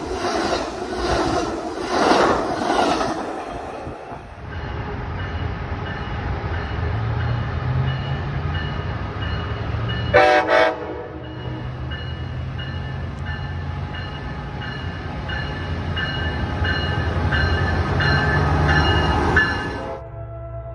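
Amtrak bilevel passenger cars passing close at speed, their wheels clicking over rail joints about twice a second. After a cut, an approaching train's locomotive runs with a low rumble and gives one short, loud horn blast about halfway through. Near the end a train horn sounds in the distance.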